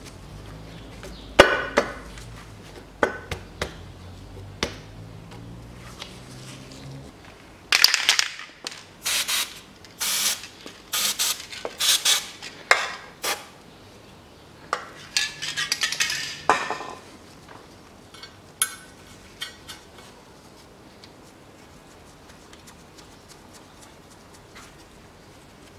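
Bursts of metallic clicking and clinking from a hand wrench working the manifold nuts on the cylinder-head studs. The clicks come thickest between about 8 and 17 seconds in.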